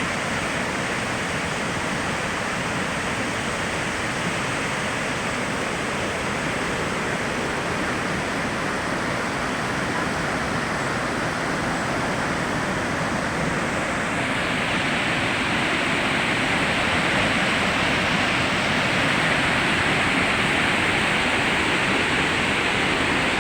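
Waterfall rushing steadily, growing a little louder and brighter about fourteen seconds in.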